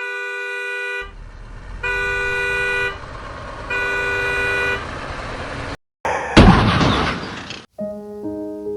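Three long, steady vehicle horn honks about a second apart over a background of noise. Then a sudden loud rush of noise that fades, and sustained musical notes begin near the end.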